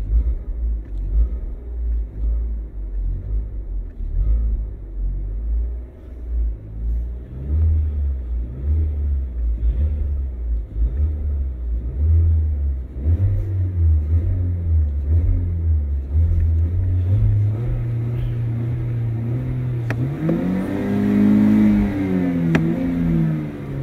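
Car engine revved on the accelerator pedal, heard from the driver's footwell: uneven low blips at first, then the revs climb in steps and hold. Near the end a longer rev rises and falls back down.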